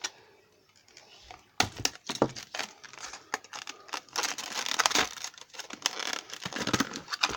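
A padlock's retail packet being torn and crumpled open by hand: dense crinkling and tearing with many sharp clicks, starting about a second and a half in.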